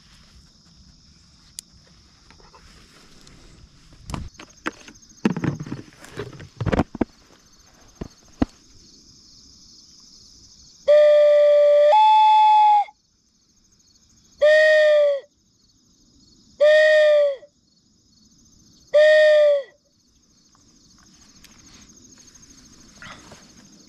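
Mourning dove call blown by hand: a two-part coo that steps up in pitch, then three shorter, lower coos about two seconds apart, mimicking a mourning dove's song to draw doves to the decoys. It comes about halfway through, after some rustling and clatter from handling gear.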